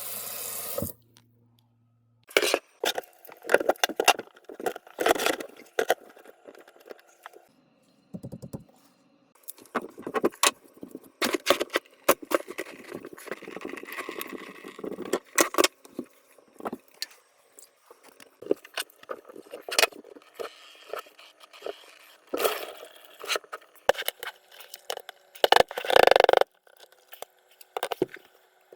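Metal tools and drain parts clattering, clicking and scraping in irregular bursts as a plumber works on a clogged kitchen sink drain.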